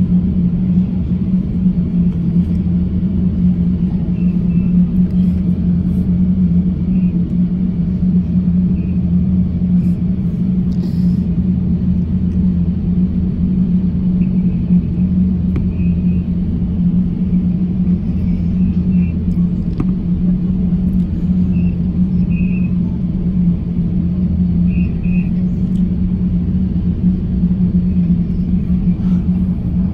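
Steady low drone inside the cabin of an Airbus A350-1000 taxiing, its Rolls-Royce Trent XWB engines at taxi power, with a constant hum and a few faint high chirps.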